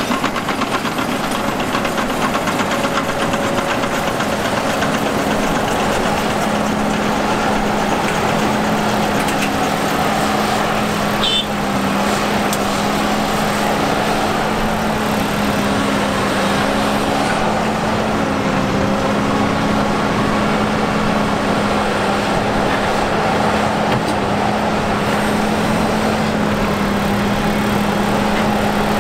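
Large diesel engine of heavy earthmoving machinery running steadily, its pitch dipping and rising slightly now and then, with one short sharp clank about eleven seconds in.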